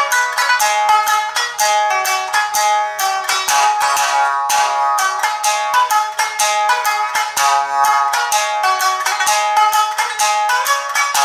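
Shamisen played solo in the Nanbu folk style: a quick, steady stream of notes struck with the bachi plectrum, each ringing briefly.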